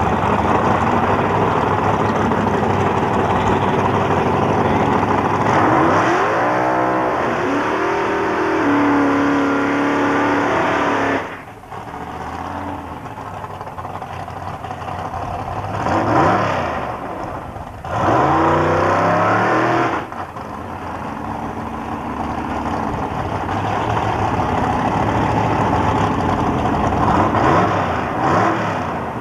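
Drag racing cars' engines running loud at the starting line and revving up, with rising pitch sweeps as cars accelerate away down the strip. The sound breaks off abruptly a few times.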